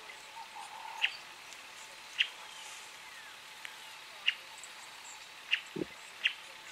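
Bush ambience: short, sharp high-pitched chirps from a small bird or insect, one every second or so, over a steady outdoor hiss. A soft low thump comes near the end.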